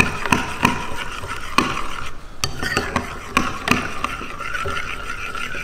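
A metal spoon stirring thick matsoni with grated garlic in a ceramic bowl. It scrapes and clinks against the sides of the bowl at uneven intervals.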